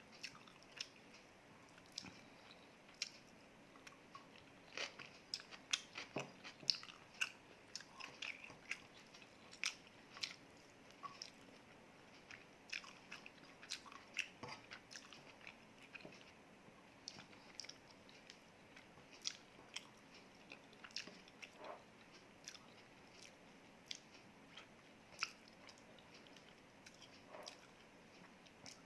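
A person chewing and biting food close to the microphone, with many short, faint crunchy clicks and mouth sounds scattered throughout.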